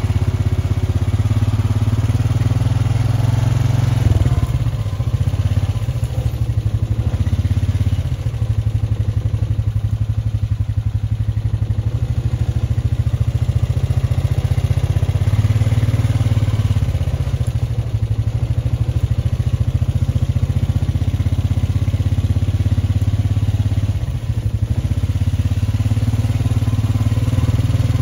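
An engine running steadily at a low, even pitch, with a light clatter over it.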